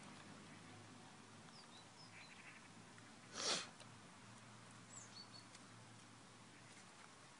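Mostly quiet, over a low steady hum, with a few faint high squeaks from a small animal and one short rustling scuffle about three and a half seconds in.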